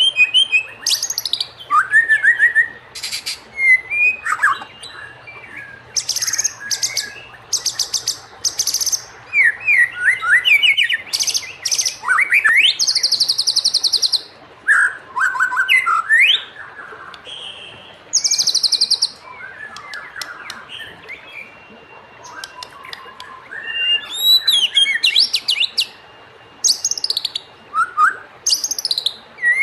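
White-rumped shama singing a varied song of whistled slurs, quick rising and falling notes and rapid high buzzy trills, phrase after phrase with short gaps between.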